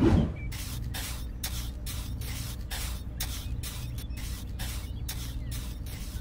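Small trowel spreading and smoothing wet concrete: a regular run of short rasping scrapes, about three a second, over a steady low hum, after a short loud rush at the very start.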